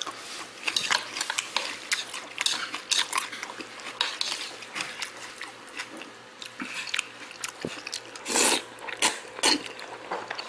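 Close-up eating sounds of jjajangmyeon: wooden chopsticks working the noodles in black bean sauce against the bowl, with chewing. Many short clicks and smacks, with a louder noisy stretch about eight and a half seconds in.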